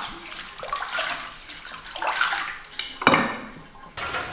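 Water splashing as vegetables are washed by hand, with dishes and utensils clattering. There is a sharp knock about three seconds in.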